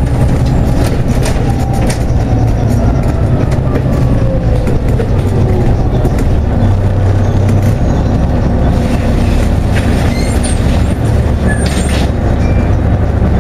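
Inside a moving Volvo B7TL double-decker bus: the Volvo D7C six-cylinder diesel and drivetrain running with a steady low drone. A whine falls in pitch over the first few seconds, and scattered clicks and rattles come from the interior.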